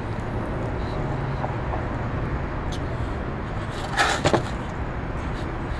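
Steady low rumble of outdoor background noise, with two short sharp clicks about four seconds in.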